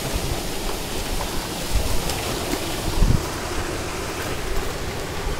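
Steady rush of flowing stream water mixed with wind buffeting the microphone, with a couple of low thumps about two and three seconds in.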